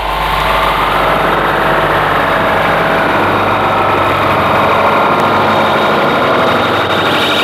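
Space-launch sound effect opening an instrumental rock record: a steady, engine-like rumble and hiss with low humming tones. Near the end a brighter, higher tone comes in over it.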